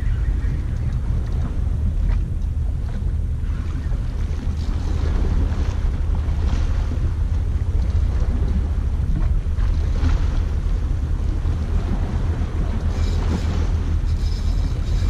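Wind buffeting the microphone at the seashore: a steady, fluttering low rumble over a hiss of sea noise.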